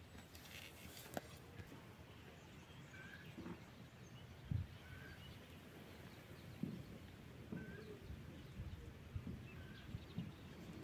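Faint outdoor rural ambience with a few brief distant bird chirps scattered through it and a couple of soft low thumps.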